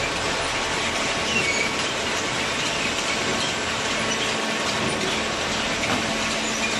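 Hydraulic cardboard baler running: a steady mechanical din with a faint hum and a few brief high squeaks.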